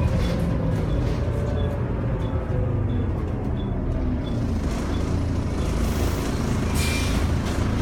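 Go North East bus 6017's engine running under way, a steady low rumble with faint falling tones. A light tick repeats about one and a half times a second, and a short hiss of air comes about seven seconds in.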